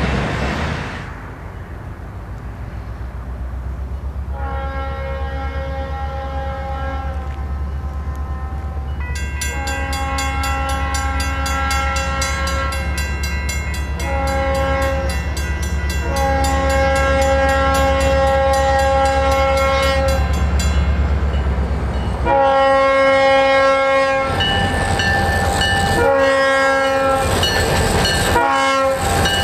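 Diesel locomotive's multi-chime air horn sounding a series of long blasts for a road grade crossing, over the steady low rumble of the locomotive's engine as it approaches and grows louder. Near the end the blasts come shorter and in quicker succession.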